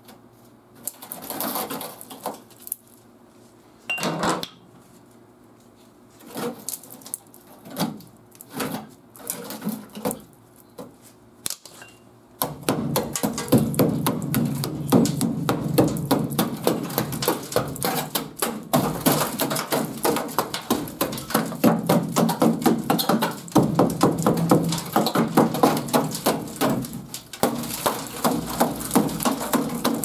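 Rusted sheet metal on a 2003 Ford F-150's wheel arch being torn and bent by hand, with scattered scrapes and crinkles. About twelve seconds in, a body hammer starts rapidly striking the rotted panel, a dense clatter of metal impacts that keeps on steadily, knocking out the rust.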